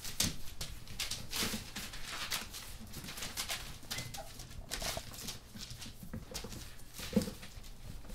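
A litter of German Shorthaired Pointer puppies scrambling about, claws clicking and scuffling on a hardwood floor and paper sheets, with a few brief puppy whimpers.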